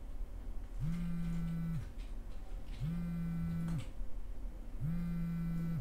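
Mobile phone vibrating against a desk: three low buzzes about a second long, each starting a second after the last one ends, the repeating pattern of an incoming call.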